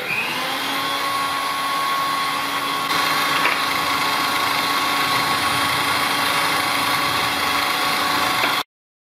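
Electric drill in a drill press stand running at a steady speed with its bit clear of the wood, a steady motor whine. The sound cuts off abruptly near the end.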